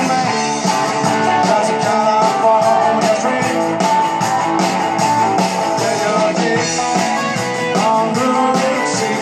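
Live rock band playing through a PA: electric guitars over a steady drum beat.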